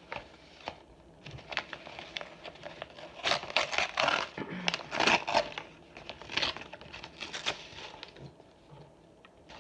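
Close-miked eating sounds: crunching and chewing of fried food with crinkling, in irregular bursts that are loudest a few seconds in.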